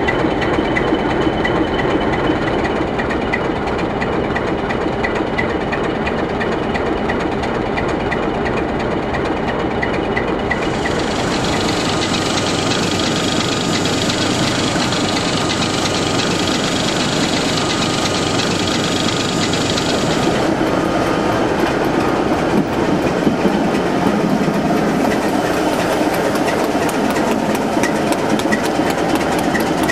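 Sulzer six-cylinder diesel engine of a British Rail Class 27 locomotive running steadily. A higher hiss joins it about a third of the way in and fades out about two-thirds of the way through.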